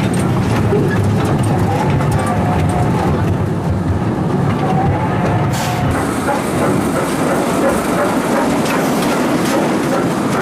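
Children's miniature amusement-park train running along its track, a steady rumble with the wheels clicking over the rails, and a short hiss a little past halfway.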